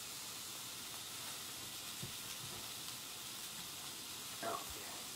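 Mahi-mahi fillet sizzling on an indoor electric grill, a steady hiss. A knife taps faintly on a cutting board about two seconds in and again near the end as bread is sliced.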